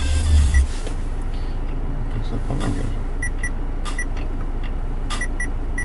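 About eight short, high touch-confirmation beeps from an Android touchscreen car radio as its screen is tapped, some in quick pairs. They sound over the steady low hum of an idling vehicle engine, with a low bump at the start.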